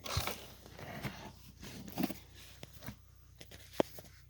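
Handling noise: a short rustle at the start, then a few light clicks and knocks spread through the rest.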